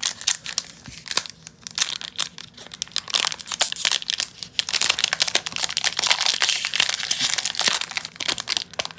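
Foil trading-card booster pack being torn open and crinkled by hand: an irregular crackling rustle of crinkles and clicks, growing denser about three seconds in.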